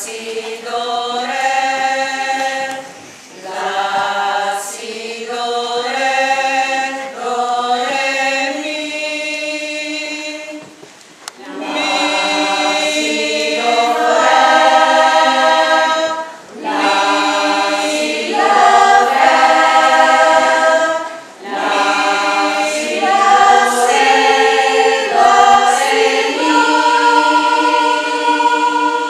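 Amateur choir of teachers and parents singing in harmony, in phrases of a few seconds with short breaks for breath between them. Near the end they hold a long chord.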